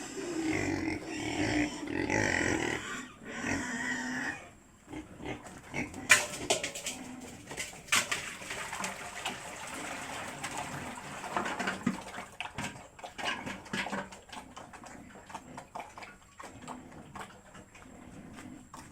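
Pigs squealing and grunting for the first few seconds, then a long run of rapid small clicks and rustling.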